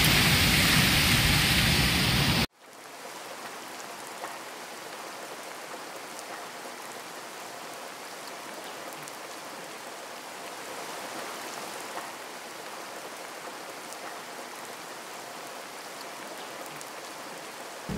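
Water pouring over a low rocky cascade, a steady rushing hiss. A louder noise at the start cuts off suddenly about two and a half seconds in.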